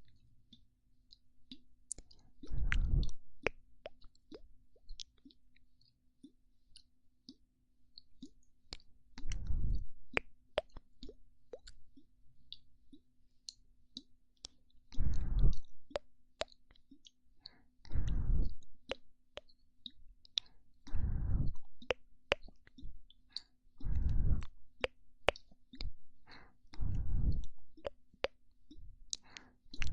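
Close-miked ASMR mouth sounds: a steady stream of small wet clicks and pops, with a short puff of breath blown into the microphone seven times, about every three seconds in the second half.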